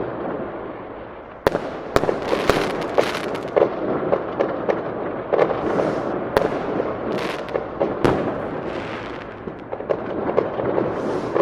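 Fireworks display: a dense, rapid barrage of sharp shell bursts and crackling reports that starts abruptly about a second and a half in and keeps going.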